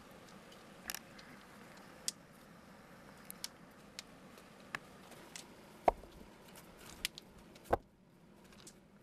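River stones knocking and clacking: footsteps on loose pebbles and rocks being set onto a dry-stacked stone wall. Scattered sharp clicks, with two heavier thuds in the second half.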